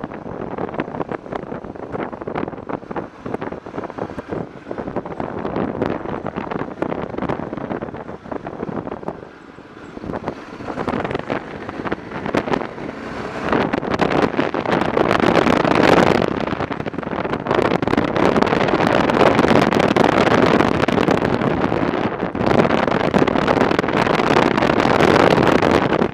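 Riding on a BMW F650 motorcycle: wind rushing and buffeting over the microphone with the engine running underneath. It dips briefly about a third of the way in, then grows louder and stays loud from about halfway.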